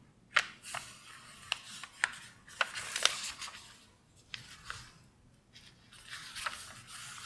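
A sheet of A4 paper being handled and folded on a hard floor: rustling and crinkling broken by about nine short, sharp crackles as the edges are lined up and the crease is pressed.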